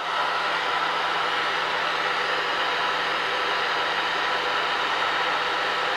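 Handheld hair dryer running steadily, blowing on a puppy's coat: an even rush of air over a low motor hum.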